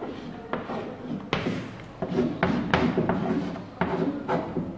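Chalk on a blackboard as figures are written: a series of sharp taps, about seven in all, with softer scraping between them.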